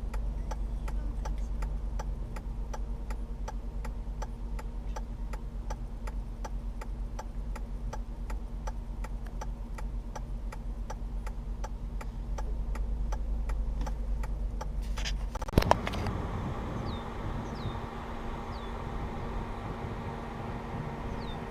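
Steady low vehicle hum with an even ticking, about two to three ticks a second, for about fifteen seconds. Then a loud double click, after which the hum drops away and open outdoor ambience with a few short high chirps follows.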